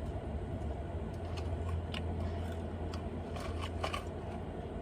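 Someone eating fried chicken: scattered small clicks, crackles and rustles from chewing and handling the food, over a steady low hum.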